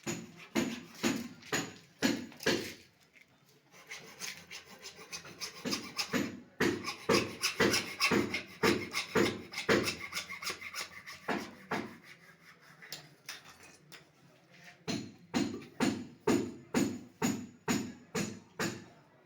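Hand tool rasping on pipe in quick back-and-forth strokes, about two to three a second. The strokes come in three spells, with short lulls after about three seconds and again around twelve seconds.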